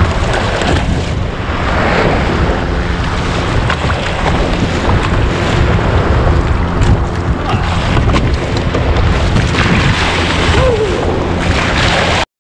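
Small waves breaking and washing around a kayak in the shore break, with heavy wind buffeting the microphone.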